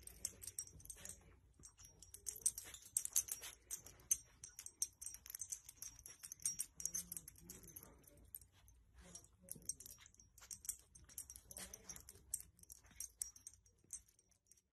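Faint, irregular light clinking and rustling as a small dog moves about in a blanket, its collar tag jingling with each movement.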